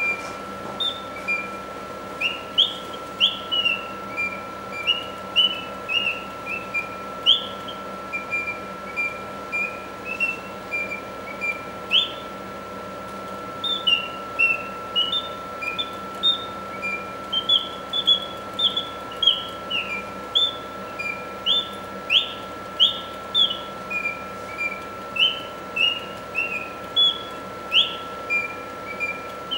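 Singing bird box automaton whistling its mechanical birdsong: a clockwork-driven bellows and sliding piston whistle give a run of short chirps and quick rising and falling notes in phrases, with a brief pause near the middle, over a steady faint hum.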